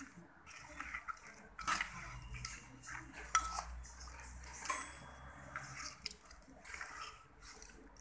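Spoon tossing papaya salad in an earthenware mortar: irregular scrapes and rustles of the wet ingredients against the clay, with a few sharp clinks.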